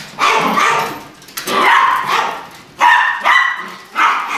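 Small dogs barking, a string of about seven loud barks in quick groups of two.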